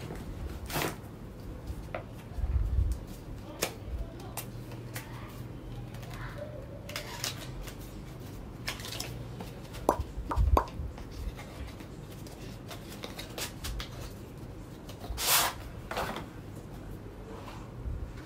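A cardboard jewellery gift box being handled and opened: scattered clicks and taps of the box and lid, a couple of dull thumps, and a louder brief scrape about three seconds before the end.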